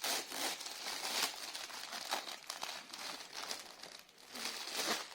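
Plastic parcel packaging crinkling and rustling in irregular bursts as the parcel is opened by hand.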